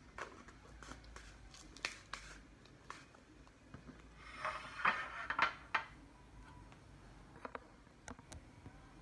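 Scattered small clicks and taps of handling at a table, with a louder cluster of crackly noises about halfway through.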